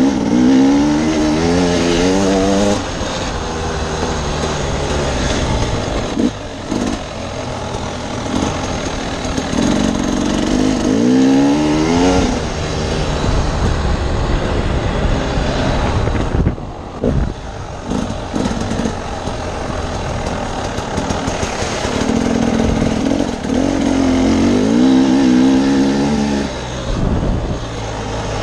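A 2016 Husqvarna TE300 two-stroke dirt bike engine under way on a trail. It revs up with the pitch climbing three times, near the start, around the middle and near the end, between stretches of steadier running. There is wind rush and a few short knocks in between.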